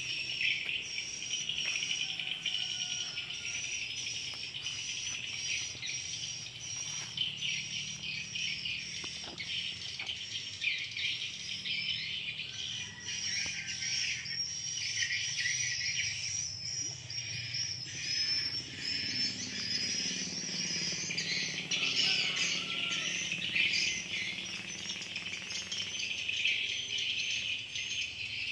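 Steady outdoor chorus of insects and birds: a continuous high, fast-pulsing buzz with chirps over it, and a soft low rumble underneath.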